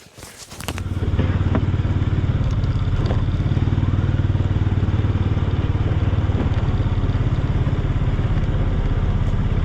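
A motor vehicle's engine running steadily, with a low, even drone and a fast pulse through it. It starts up about a second in and holds a constant level.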